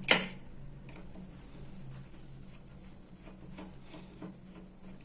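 A sharp click, then faint scraping and a few small ticks: a small screwdriver working screws out of a hair clipper's plastic housing.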